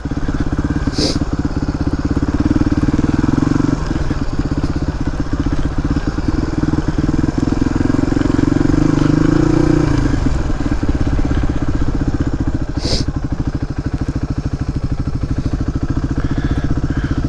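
Suzuki DR250S single-cylinder four-stroke engine running under way through a Dominator R aftermarket exhaust, at fairly steady revs that ease off about ten seconds in.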